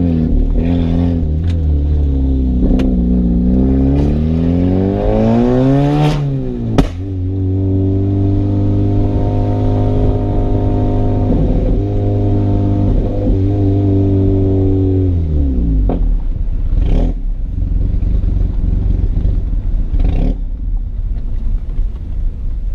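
Turbocharged VW 1.8T four-cylinder car engine revving up and down, one sharp loud pop about seven seconds in, then holding a steady pitch for about eight seconds before falling away to a low rumble broken by a few short pops.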